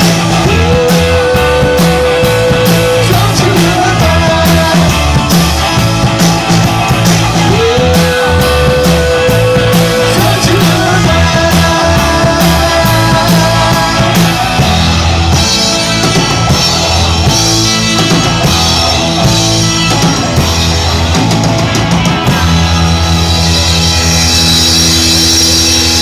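Rock band playing live: electric guitar, electric bass and drum kit with a singer, recorded loud and close. The cymbals grow louder in the second half.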